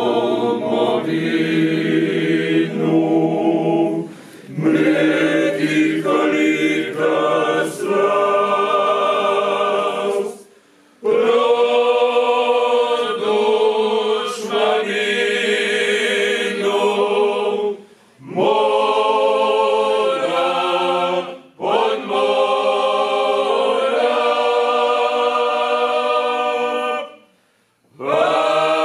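Male klapa group singing a cappella in several-part harmony, holding long chords in phrases that break off briefly for breath about five times.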